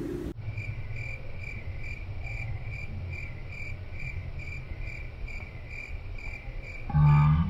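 Cricket-chirp sound effect: crickets chirping evenly at about three chirps a second, starting abruptly at a cut. A short low hum near the end is the loudest sound.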